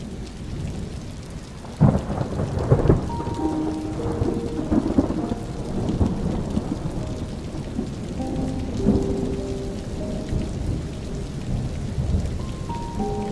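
Thunderstorm: steady rain and rolling thunder, with a sudden loud thunderclap about two seconds in and more rumbling after it. Slow, soft musical notes play over the storm from about three seconds in.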